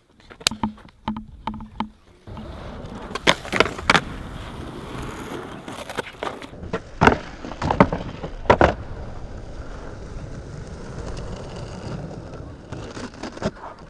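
Skateboard wheels rolling on rough concrete, a steady low rumble that starts about two seconds in. Over it come a series of sharp clacks as the board's tail and wheels strike the concrete: several in quick succession, a few more in the middle, and one near the end.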